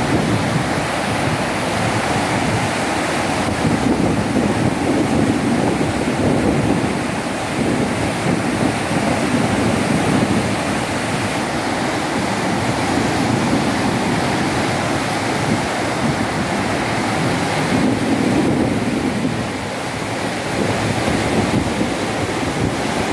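Tidal river water rushing and churning through a sluice gate opening, a steady loud roar of turbulent flow. The flow is there because one gate leaf failed to close against the rising tide.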